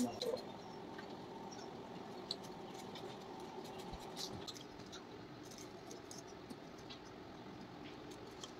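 Kitchen knife cutting and scraping the skin off a pineapple: faint, scattered clicks and scratches over a steady low hum.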